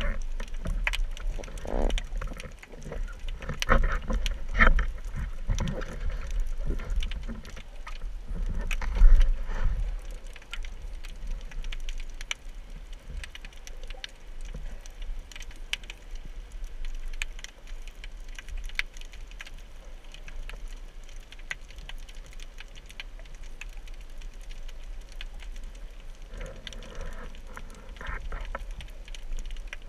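Underwater sound: low water movement and rumble with louder surges in the first ten seconds, and many scattered sharp clicks and crackles throughout.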